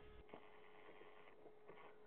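Near silence: a faint steady hum with soft rustling and a few light clicks.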